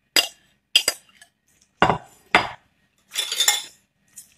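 Spoons clinking and knocking against a bowl and a plastic food container, four sharp knocks, then a short scraping stir through thick macaroni salad about three seconds in.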